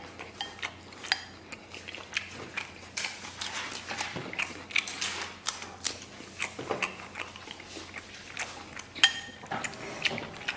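Close-miked eating of braised noodles: wet chewing and lip smacks, with wooden chopsticks now and then clicking against a porcelain bowl. Many short clicks follow one another unevenly, a few louder than the rest.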